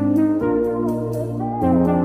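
Music of slow, sustained brass-like chords, the chord changing about half a second in and again near the end.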